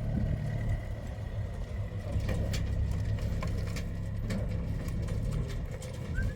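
Low steady rumble of a running motor vehicle, with scattered clicks and rattles in the middle and a brief squeak near the end.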